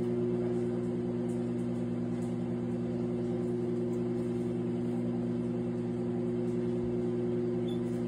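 Countertop microwave oven running: a steady, unchanging hum.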